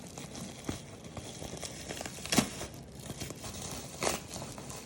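Heavily taped packing wrap being pulled and torn away by hand, with crinkling throughout and two sharper rips, about two and a half and four seconds in.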